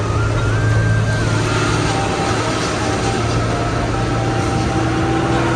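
Truck engine running steadily with a deep low hum and road noise, heard from inside the cab while driving.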